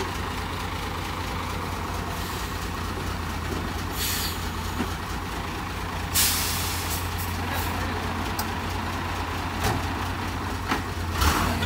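FAW Liute dump truck's engine running low and steady as the truck creeps along. Compressed air hisses briefly about four seconds in, and the air brakes hiss louder about six seconds in. A few short clatters follow near the end.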